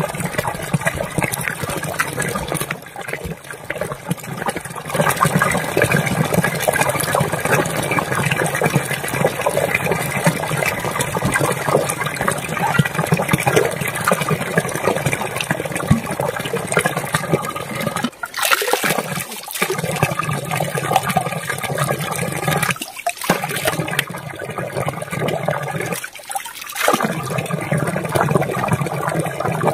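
Spring water gushing steadily from a metal pipe and splashing onto the rocks below. It cuts out briefly a few times in the second half.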